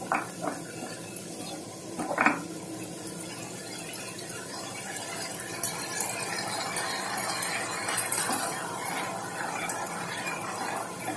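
Chopped vegetables sizzling in a frying pan over high heat while being stirred with a wooden spatula. The spatula knocks against the pan twice in the first couple of seconds.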